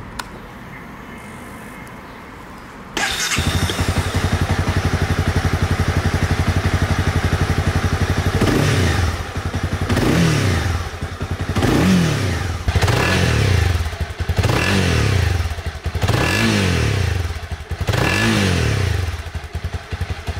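Honda CB300R's 286 cc single-cylinder engine catching about three seconds in and idling, then revved in about seven quick throttle blips, each rising and falling in pitch, before it settles back to idle near the end.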